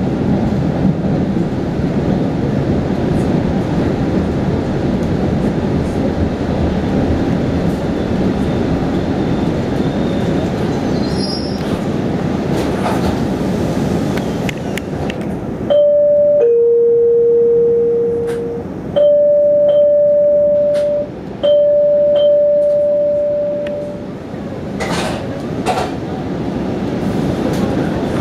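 2007 Siemens Blue Line subway car with GE traction motors running on the rails with a steady rumble. About halfway through the rumble drops away and steady tones sound at two pitches in turn for several seconds, with scattered clicks, before the running rumble comes back near the end.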